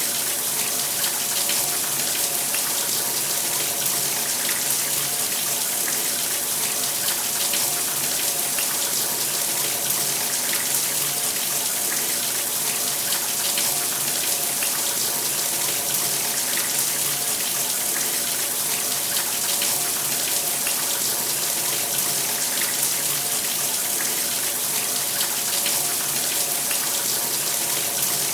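Shower running steadily: a constant spray of water hissing and splashing, with a faint steady hum beneath it.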